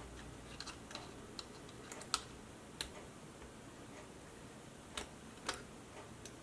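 Faint, irregular light clicks and taps of small hand tools against a circuit board and bench during soldering, a dozen or so, with a few sharper clicks about two seconds in and near five and a half seconds.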